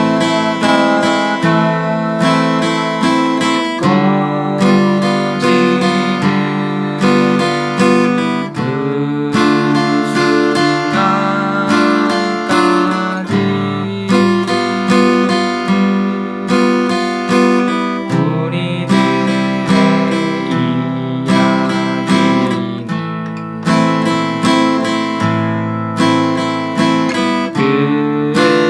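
Acoustic guitar strumming open chords in three-four time, a downstroke on the first beat and down-up strokes on the second and third, with the chord changing every bar or two.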